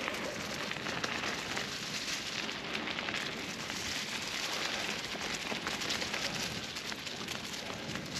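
Mountain bike tyres rolling over a dirt forest trail strewn with dry fallen leaves: a continuous crackling rustle of crushed leaves and grit.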